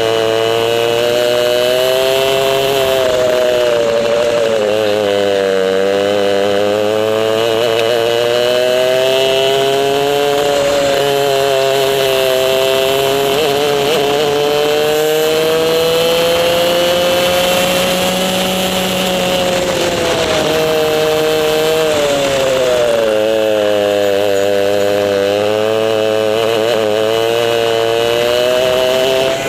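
Racing kart's 100cc two-stroke engine heard onboard at racing speed, its revs repeatedly dropping into corners and climbing again on the straights.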